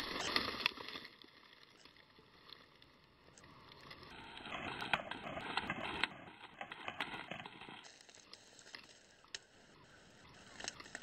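Crunching and rustling of dry straw stubble underfoot, in two short spells of crackling with scattered small clicks: one at the start and a longer one from about four to seven seconds in.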